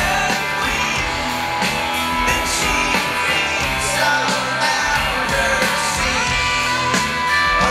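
Live rock band playing: electric guitar over drums, loud and steady.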